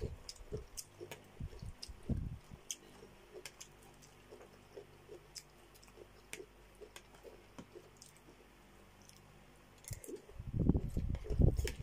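Close-miked chewing and wet mouth sounds of a person eating chicken and cabbage soup, with scattered small clicks. The eating sounds grow louder near the end as another spoonful goes into the mouth.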